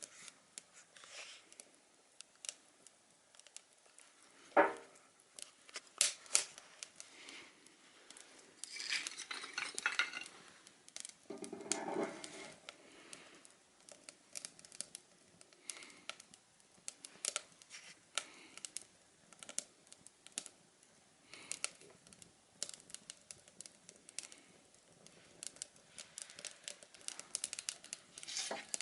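Tin can and metal parts being handled: scattered light metal clinks and knocks, with a few stretches of rustling.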